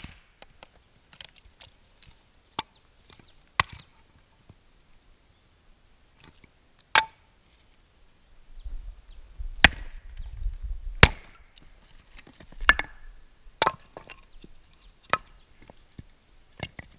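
Hatchet striking and splitting small pieces of firewood on a wooden chopping stump: about a dozen sharp, irregularly spaced chops, with wood cracking as the pieces split.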